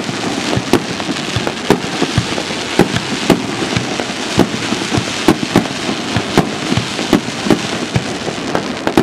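Fireworks going off in a rapid barrage: sharp bangs and pops about two a second, some louder than others, over a continuous crackling hiss.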